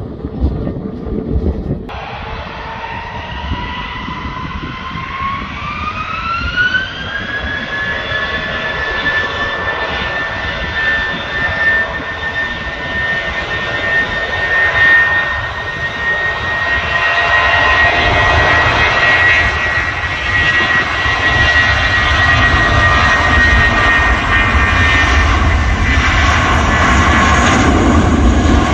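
Jet airliner engines spooling up: a whine rises in pitch a few seconds in and levels off into a steady high whine, while the deep rumble grows louder through the second half.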